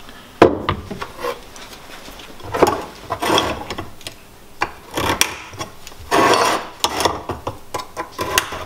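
A metal motor set down on a wooden workbench with a sharp knock, then a scriber and sliding marking gauge scratching and scraping across a steel plate in several short strokes, marking out the centre for a hole to be drilled.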